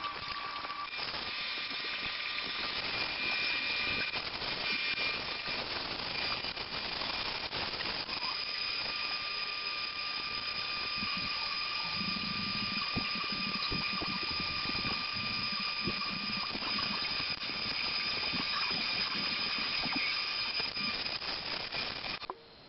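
Shopping cart rolling through a store aisle: rattling wire basket and wheel noise on the floor, with a steady high-pitched tone running through it and a few knocks about halfway through.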